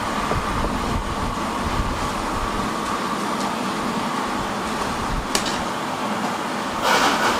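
Steady hum and rumble of running factory machinery, with a sharp click about five seconds in and a louder rushing burst near the end.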